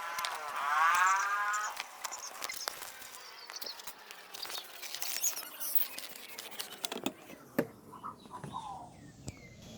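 A drawn-out animal call with a clear, wavering pitch lasting about a second and a half, amid scattered sharp clicks and knocks; faint short chirps follow near the end.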